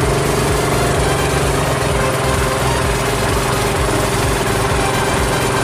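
Small boat engine running steadily, its pitch dropping a little about two seconds in.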